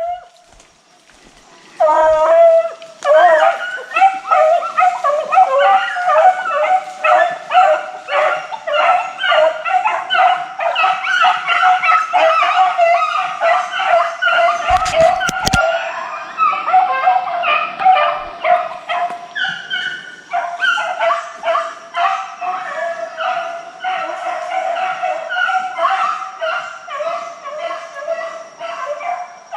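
A pack of deer hounds baying and bawling together in quick, overlapping calls, starting about two seconds in: the dogs giving voice on a deer's scent trail after being put on it. A brief knock sounds about halfway through.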